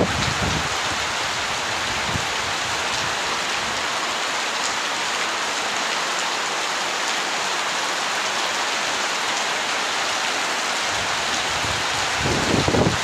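Heavy rain pouring steadily, a dense even hiss, with a low rumble near the start and again near the end.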